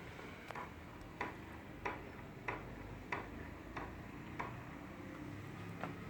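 A regular series of sharp clicks, about three every two seconds, pausing briefly before one last click near the end.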